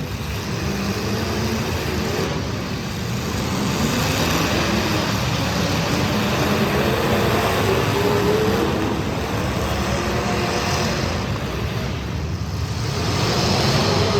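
Street stock race car engines running at speed, their pitch rising and falling as they rev.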